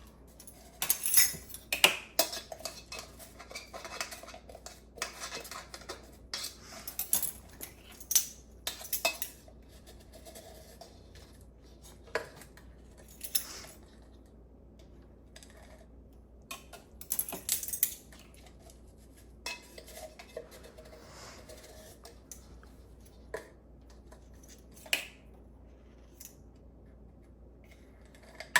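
Spoons and kitchenware clinking and scraping against bowls and containers as dry baking ingredients are measured out, in irregular bursts. The clinks are busiest in the first third and come only sporadically after that.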